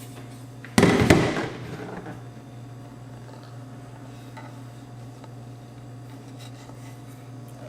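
A loud clatter about a second in, lasting about a second, as the metal car-amplifier casing is handled during disassembly. Faint handling ticks follow over a steady low hum.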